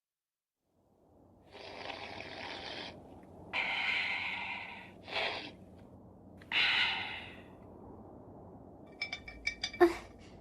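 Story sound effects of soup being slurped, four noisy sucking slurps, then a run of quick light clinks on a dish near the end.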